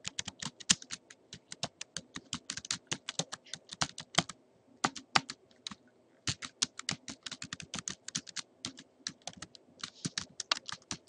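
Typing on a computer keyboard: quick runs of key clicks, with short pauses near the middle.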